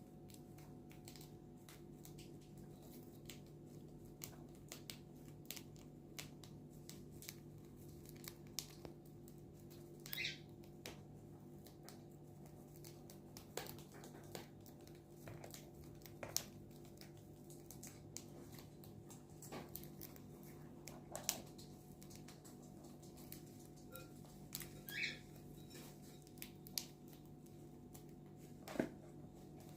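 Faint scattered clicks and rustling from a pet pearl cockatiel, with two short soft chirps, one about ten seconds in and one near twenty-five seconds, over a steady low hum.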